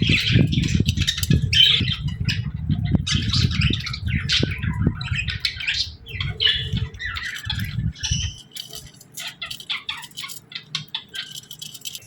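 Pet budgerigars chirping, a dense run of short, high calls. Under them runs a low rumble that cuts off about eight seconds in, leaving only the chirps.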